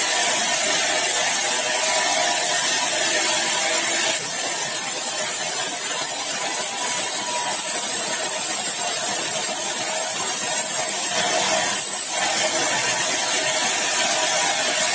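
Sawmill saw cutting through a large log of hard, dry bengkirai (balau) wood, giving a steady hissing noise with a constant tone underneath.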